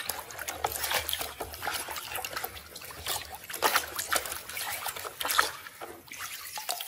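Muddy water sloshing and splashing in a plastic basin as a hand scrubs a toy under the surface, with irregular splashes and trickling throughout.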